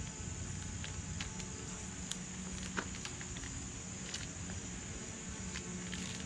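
Scattered light ticks and crackles of chrome vinyl wrap film being handled and pressed by hand over a truck grille emblem, with a sharper click a little under three seconds in. Under it runs a steady high insect buzz and a low steady hum.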